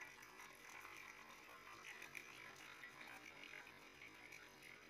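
Faint splashing and trickling of curds and whey poured from a steel pot into a mesh strainer over a steel bowl.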